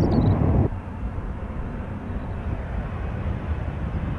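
Jet airliner on approach, a steady low rumble of distant engines mixed with wind noise. A louder rumble cuts off abruptly just under a second in.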